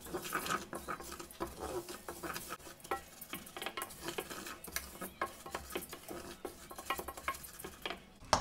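Wooden spoon stirring and scraping dry rice grains around a stainless steel saucepan, making irregular small clicks and scrapes. The rice is being toasted in melted butter and corn oil until translucent.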